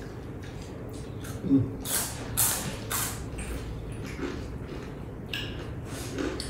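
Close-up mouth sounds of people biting and chewing fried snacks: a run of short crunching and smacking sounds, loudest about two to three seconds in, with a few more near the end.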